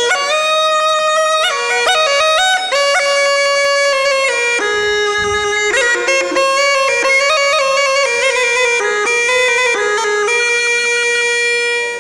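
Hurdy-gurdy playing a stepping melody over a steady drone, with a reedy, bagpipe-like tone. It stops abruptly at the end.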